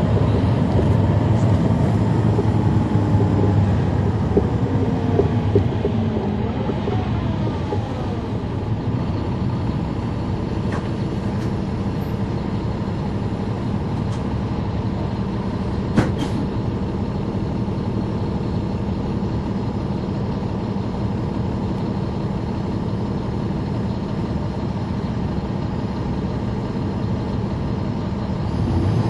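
Caterpillar C13 diesel engine and ZF Ecomat automatic transmission of a NABI 40-SFW transit bus, heard from inside at the rear: falling whines as the bus slows over the first several seconds, then the engine idling steadily. A single sharp click about sixteen seconds in.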